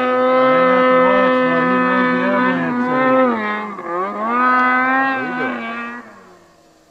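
Snowmobile engine held at high revs while climbing, a steady high drone whose pitch dips briefly about four seconds in and climbs back, then falls away sharply about six seconds in.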